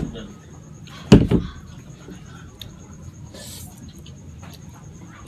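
Close-miked eating sounds of a person chewing fettuccine carbonara and slurping the noodles off a fork, with small wet mouth clicks throughout and a brief hissy slurp about three and a half seconds in. A short loud thump about a second in is the loudest sound.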